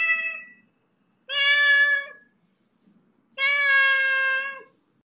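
Siamese cat meowing: the tail of one long meow, then two more loud, steady-pitched meows of about a second each, some two seconds apart.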